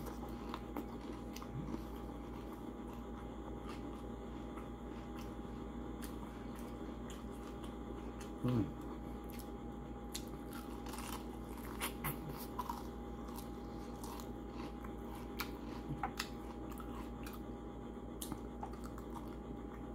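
Close-mouthed chewing of crispy breaded chicken wings, with scattered small crunches and wet mouth clicks over a steady background hum. A brief low hum from the eater's voice comes near the middle.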